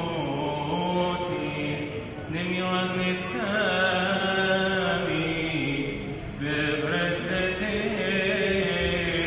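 A Coptic Orthodox priest's solo voice chanting liturgical chant: long held notes with wavering, ornamented runs, pausing briefly for breath about two and six seconds in.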